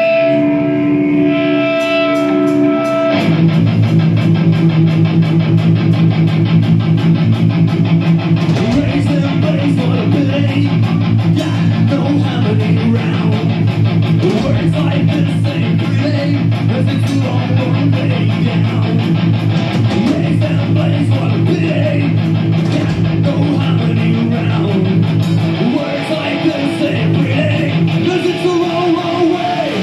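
Live rock band on stage, led by distorted electric guitar: a few held, ringing notes, then the full band comes in about three seconds in with a heavy, driving riff.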